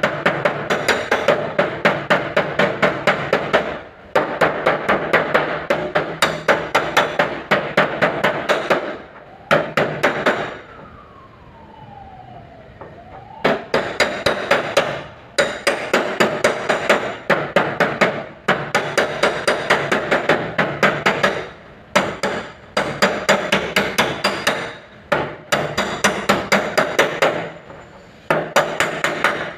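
Hammer beating dents out of a car door's sheet metal panel, in fast runs of about four blows a second broken by short pauses. In a longer pause about ten seconds in, a faint falling tone.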